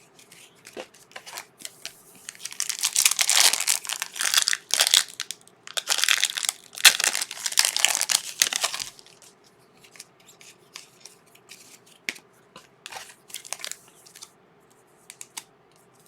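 Trading-card pack wrapper being torn open and crinkled in two long bouts, followed by quieter handling of the cards with scattered soft clicks and rustles.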